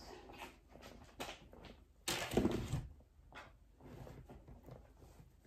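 Backpack being rummaged: fabric rustling and a few soft knocks as a laptop is worked out of the bag's padded laptop compartment, the loudest rustle about two seconds in.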